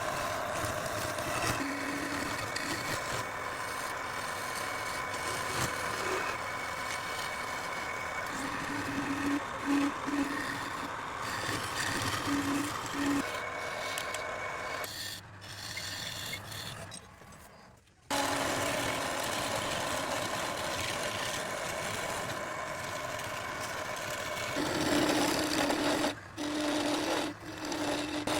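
Woodturning on teak: a lathe runs with a steady hum while a tool rasps against the spinning wood. About halfway through the sound fades low, then comes back suddenly and grows louder toward the end.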